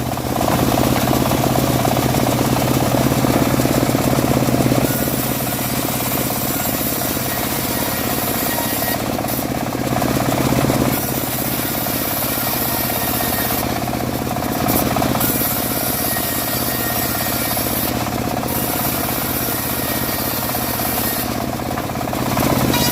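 Homemade engine-driven bandsaw mill running steadily while sawing dry teak, a continuous rattling machine drone that swells louder for a few seconds at a time, most at the start.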